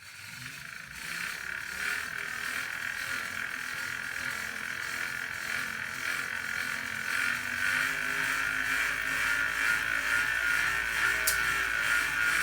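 Tacx Booster magnetic turbo trainer spinning up under a pedalled bike and running with a steady high-pitched noise, building over the first couple of seconds and then slowly growing louder. The owner does not know what is causing the noise in the year-old trainer.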